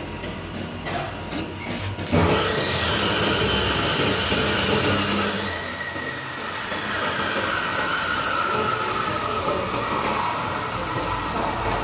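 Stick (shielded metal arc) welding on steel: after a few light taps of the electrode, the arc strikes about two seconds in and crackles and hisses loudly for about three seconds, then goes on more softly. A slowly falling whine runs under the noise in the second half.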